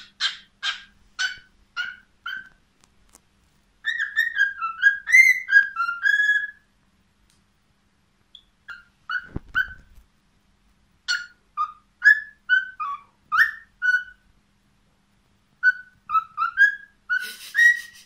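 Cockatiel whistling and chirping in short bursts: a quick run of chirps at the start, then warbling whistled phrases with pauses between. A single low thump about halfway through.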